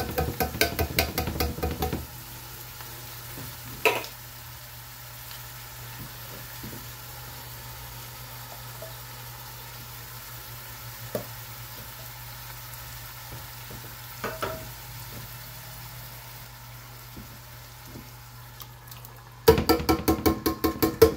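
Crushed tomatoes being shaken out of a tin can into a pan of browned ground beef: two short spells of rapid knocking, one at the start and one near the end, with a single knock about four seconds in. Between them the pan sizzles low and steadily.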